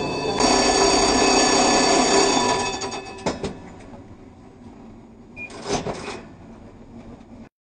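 Tram warning bell ringing continuously, louder from about half a second in, then stopping and dying away after about two and a half seconds. A few knocks follow near the middle and toward the end.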